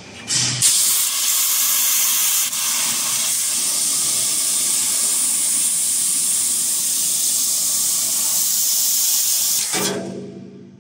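AccTek fiber laser cutting head cutting a metal sheet, its assist-gas jet blowing through the nozzle as a loud, steady hiss. The hiss starts suddenly about half a second in and dies away near the end as the cut stops.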